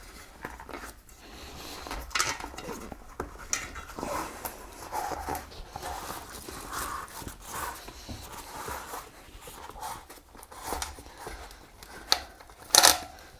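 Rubber inner tube being pulled out from between a bicycle tire and its rim: soft, irregular rubbing and rustling of rubber, with a few sharp clicks, the loudest two near the end.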